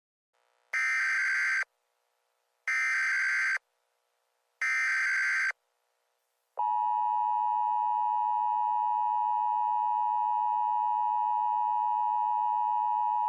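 Emergency Alert System header: three short bursts of SAME data tones, each just under a second and about two seconds apart, then a long steady attention tone beginning about six and a half seconds in, the signal that an emergency alert message follows.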